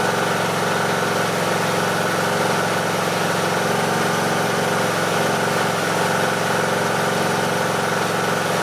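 Briggs & Stratton 18.5 hp Intek engine of a Husqvarna YTH18542 riding mower idling at an even speed, without rising and falling: the surge cured by a cleaned-out pilot jet.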